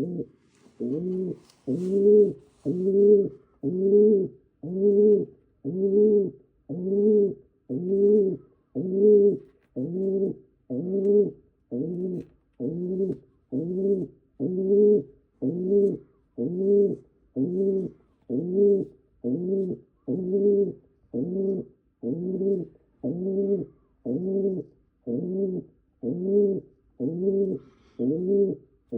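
Pigeon cooing: a short, low note repeated very evenly about once a second.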